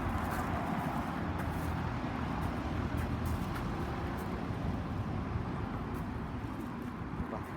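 Steady rumble of road traffic as outdoor background noise, with no speech or music.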